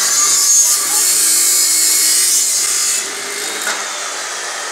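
Abrasive chop saw grinding through galvanized steel conduit, a loud harsh hiss. About three seconds in the cut finishes and the saw runs on more quietly.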